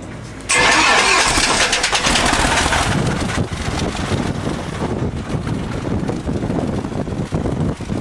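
Cessna 172 floatplane's piston engine starting: it catches suddenly about half a second in and keeps running with its propeller turning, harsher for the first couple of seconds and then settling to a steadier run.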